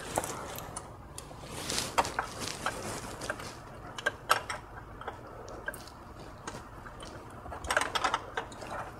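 Scattered metallic clicks and clinks of a wrench working the high-pressure fuel hard-line fitting under the intake manifold of a 2.0T TSI engine, with a quick cluster of clicks near the end.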